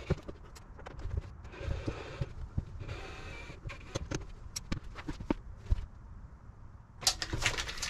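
Scattered clicks, taps and knocks of hand work as screws are worked out of a window screen cover by reaching through a drawer, with a louder stretch of rustling and scraping near the end.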